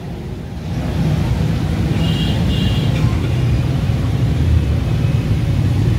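Steady low rumble of busy street traffic, with a brief high-pitched tone about two seconds in.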